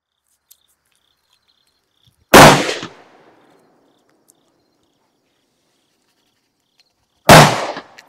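Two shots from an Austrian M1849 Kammerbuchse muzzle-loading rifle firing .69-calibre Burton-Minié balls on 65-grain powder charges, about five seconds apart. Each is a sharp report with a short echoing tail.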